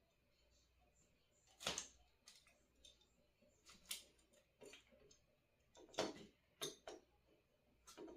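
A few light, irregular clicks and taps, about eight, of small tools and parts being handled at a soldering bench.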